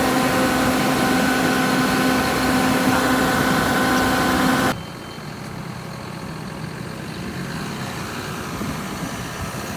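John Deere 6155R tractor's diesel engine idling steadily just after a cold start in freezing weather, with a steady whine over the engine note. About halfway through, the sound drops suddenly to a quieter, duller idle.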